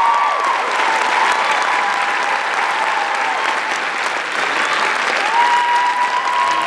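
Theatre audience applauding at the end of a song, with a few voices cheering over the clapping, most noticeably near the end.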